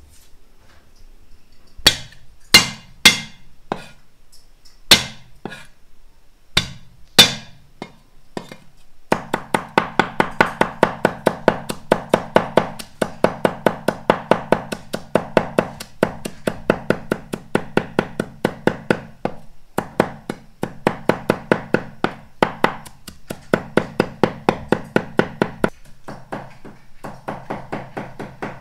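Large kitchen knife chopping shallots and garlic on a wooden board. It starts with a few separate heavy strokes, then from about nine seconds in mincing runs fast and steady at about four to five strokes a second, growing quieter near the end.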